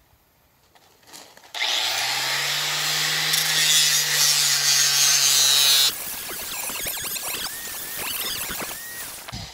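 Angle grinder with a coarse 50-grit diamond sanding pad, switched on about a second and a half in and sanding the rounded edge of a travertine paver: a loud, steady grinding with the motor's hum underneath. Near six seconds it drops to a quieter, uneven scraping.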